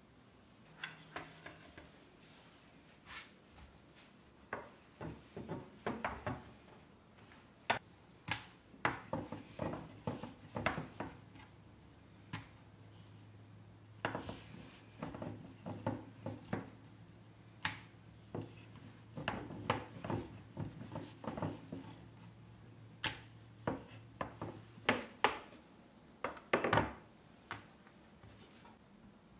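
Wooden rolling pin rolling and knocking on a wooden board while dough balls are rolled out into thin rounds: irregular soft knocks and clacks, in clusters with short pauses between them.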